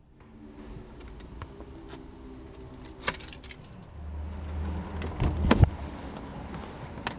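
Clicks and rattles of someone moving about inside a car. A low rumble comes in about four seconds in, with two heavy thumps soon after.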